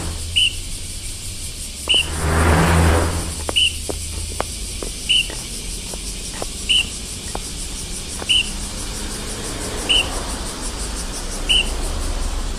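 A short, high, bird-like chirp repeating evenly about every second and a half over a low steady hum. About two seconds in a whooshing swell rises and fades, and a few sharp clicks follow.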